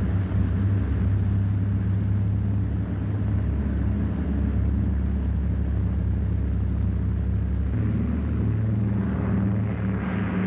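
Piston engines of a flying boat droning steadily, with a shift in pitch about eight seconds in.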